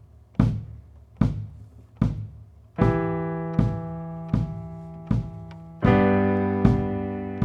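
Instrumental music: a slow, even beat struck about every 0.8 seconds over a low sustained bass note, joined about three seconds in by held chords that change about six seconds in.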